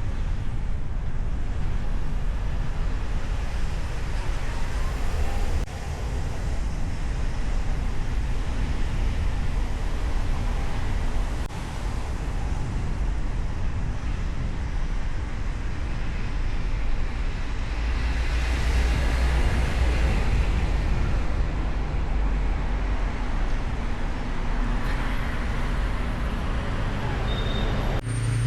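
City traffic and road noise from a moving car, picked up by a hood-mounted microphone: a steady low rumble of engine, tyres and air. About two-thirds of the way through, the traffic noise swells louder for a few seconds.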